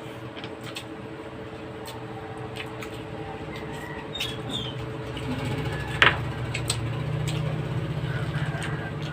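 Sharp clicks and clinks of spoons and utensils against dishes during a meal, the loudest about six seconds in. A low engine-like rumble comes up about halfway through and holds under it.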